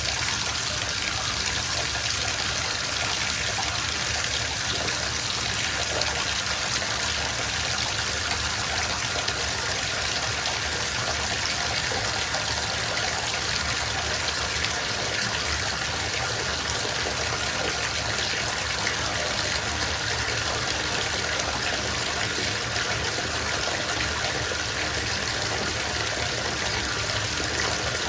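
Water running steadily from a bathtub tap into the filling tub, an even rushing splash.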